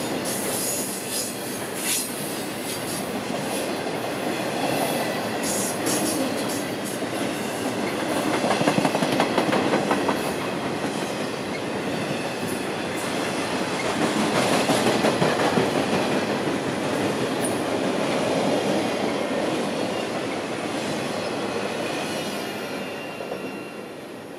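Intermodal freight train's cars rolling past at speed: a steady rumble of steel wheels on rail with clattering over the joints, dying away near the end as the last car goes by.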